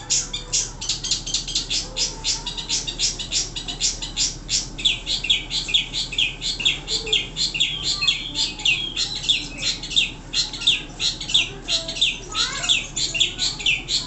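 A long-tailed shrike (pentet) singing a fast, unbroken run of short, sharp, high notes, about five or six a second, with a few sliding whistles mixed in near the end.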